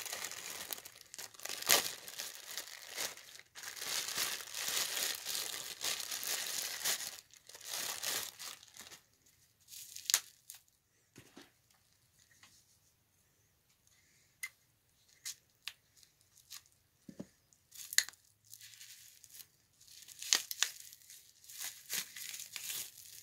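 Clear plastic packaging crinkling and tearing as a figure is unpacked. The crinkling goes on for about the first nine seconds, then comes in scattered sharp snaps and clicks, with another short burst of crinkling near the end.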